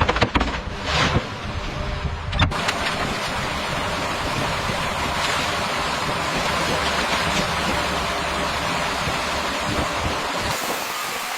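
A few sharp knocks, then from about two and a half seconds in a steady rushing noise that starts abruptly, with another sudden shift in its tone near the end.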